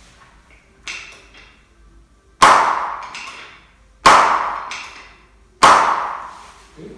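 Chiropractic drop-table section dropping under the adjuster's thrust: three sharp loud clacks about a second and a half apart, each ringing briefly, after a lighter click about a second in.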